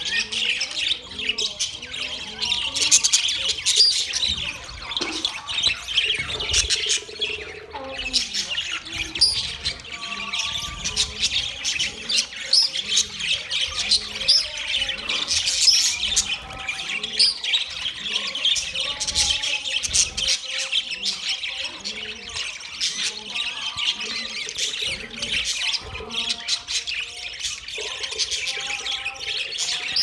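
A flock of budgerigars chattering nonstop, a dense overlapping mix of warbles, chirps and squawks with no pause.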